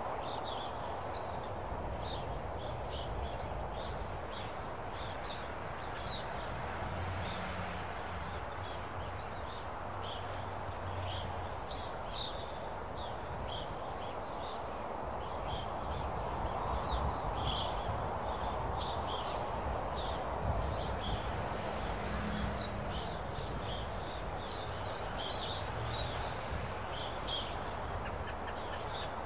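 Open-country nature ambience: a steady wind rush that swells and eases slowly, with many short high bird chirps scattered throughout.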